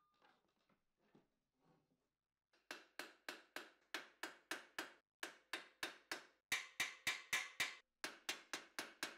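Small hammer peening a rivet on a steel great helm: rapid, evenly spaced sharp metal taps with a short ring, about three a second, starting about two and a half seconds in, with a brief pause near the end. Before them, a few faint knocks.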